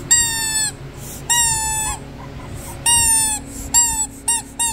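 Orange rubber chicken-leg squeaky dog toy squeezed by hand, giving about six squeaks. The first are long, steady squeals, each dipping in pitch as it ends; they come shorter and quicker near the end.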